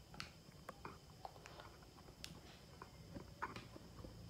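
Faint, irregular crinkles and light taps of plastic-wrapped Oreo snack packets being handled and laid out on a wooden table, the loudest tick about three and a half seconds in.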